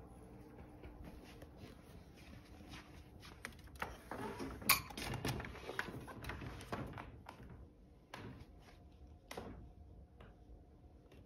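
Faint movement and handling noise from someone walking through a house with a phone: scattered knocks, clicks and rustles. They are busiest around the middle, with one sharp click there and another near the end.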